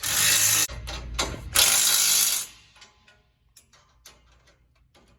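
Two short, loud bursts of hissing compressed air from a pneumatic tool, the second about a second and a half after the first. Scattered light metallic clicks of hand tools follow.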